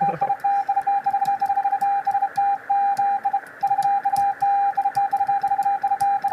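Morse code beeps from an amateur radio transceiver: a single steady tone keyed on and off in quick, uneven dots and dashes, with a brief pause about three and a half seconds in, over steady receiver hiss. The keying is a young child's rapid, unpatterned sending.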